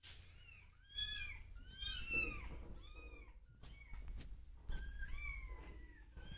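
Domestic cat meowing repeatedly, high-pitched calls about one a second, each rising and then falling in pitch, with a longer, drawn-out meow about five seconds in.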